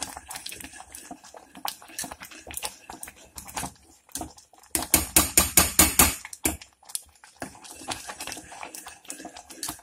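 Steel spoon stirring thick moong dal and jaggery in an aluminium pressure cooker, scraping and knocking against the pot walls and bottom, with a fast run of scrapes about five seconds in. The dal is kept moving so it does not stick to the bottom while it cooks down.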